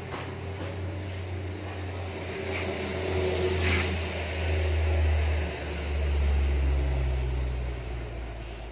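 A motor vehicle passing: a low engine rumble swells, drops in pitch about halfway through and fades away. A couple of light clinks are heard around three to four seconds in.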